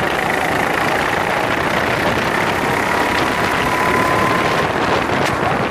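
Racing go-kart's small engine running flat out, heard on board over heavy wind noise, its note rising slowly over several seconds.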